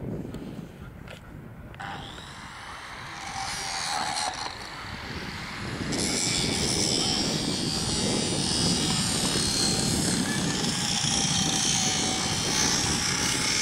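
Pilatus PC-6 Turbo Porter's PT6A turboprop engine starting. A rising whine builds from about two seconds in, as the starter spins the turbine up. About six seconds in the sound suddenly grows louder and fuller, and the engine runs on steadily.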